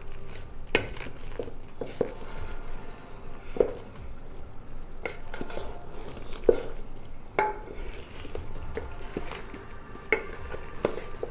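A ladle stirring and mashing boiled cassava in an aluminium pot, with irregular knocks and scrapes against the pot's side.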